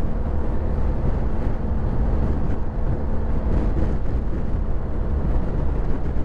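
Wind rushing over the microphone with the engine and road noise of a BMW R1250 GS Adventure's boxer twin at freeway speed. A thin steady hum runs underneath and drops out about five seconds in.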